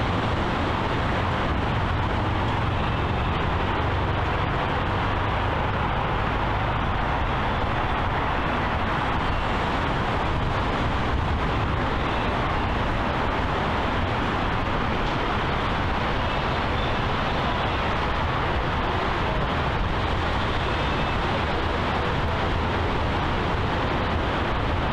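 Steady outdoor background roar, even throughout, with no distinct events standing out.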